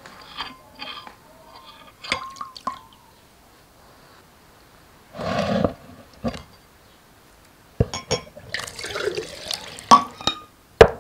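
A metal spoon clinks against a glass bowl of carrot, ginger and tomato juice, then juice is poured into a drinking glass with splashing, several sharp glass knocks and another near the end.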